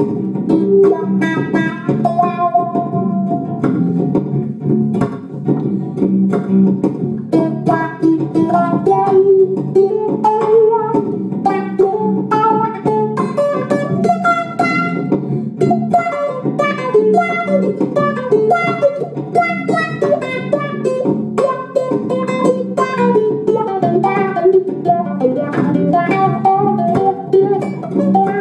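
Instrumental guitar in a reggae style: a picked single-note lead moves up and down over a steady, repeating looped rhythm-guitar part underneath.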